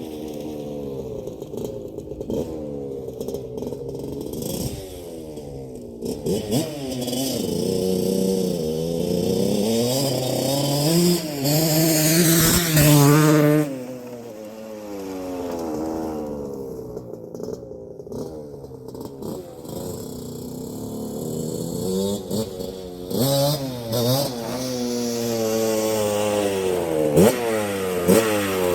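1981 Suzuki RM125X's 125 cc two-stroke single being ridden, revving up and falling back again and again, loudest as it passes close about twelve seconds in and again near the end. The engine is running on a very rich break-in fuel mix.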